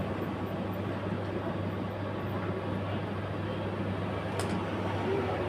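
A steady low machine hum with an even hiss over it, unchanging throughout, and one faint click about four and a half seconds in.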